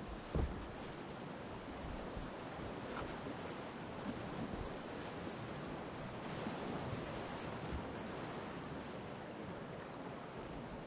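Rushing whitewater of a rocky river rapid heard from a kayak, a steady noisy hiss, with a short low thump about half a second in.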